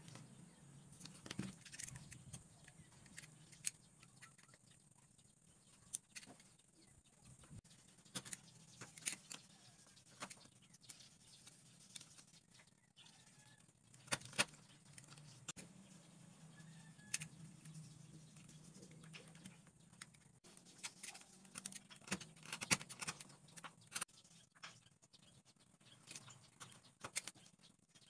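Scattered small clicks and taps of a craft knife cutting through wooden popsicle sticks against a plywood board, over a faint steady low hum.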